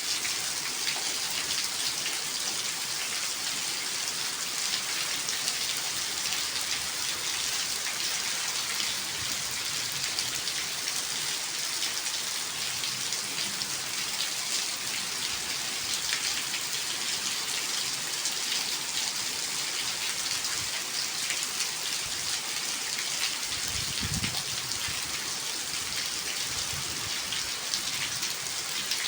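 Steady rain falling and pattering on surfaces, an even hiss throughout. Near the end there is one brief low thump.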